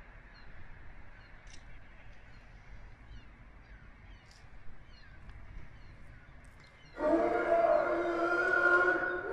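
An unexplained loud drone starts abruptly about seven seconds in. It is several steady tones held together as one chord. Before it is a quiet stretch with only faint short chirps.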